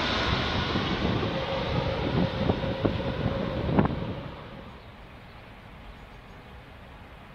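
Engine noise of a twin-engine jet airliner on final approach, just past overhead and moving away, a steady rush that drops off sharply about four seconds in, leaving faint background noise. A few short clicks are heard just before the drop.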